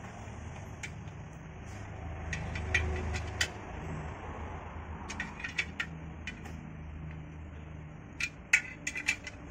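Metal clinks and taps of a long screwdriver being levered against a clutch pressure plate and disc while the disc is centred before the plate is bolted up. The clicks come in small clusters, several at a time, over a low background hum.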